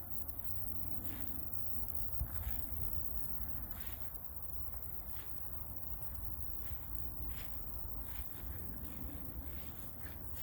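Footsteps of a person walking on a path, roughly one step a second or a little slower, over a steady low rumble.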